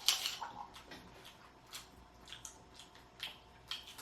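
Quiet, irregular wet smacking and squishing clicks of someone chewing and handling sauced seafood boil.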